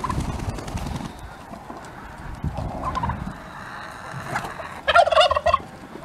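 Domestic turkey gobbling: one loud, rapid, rattling gobble about five seconds in, with a few shorter calls from the flock of poultry before it.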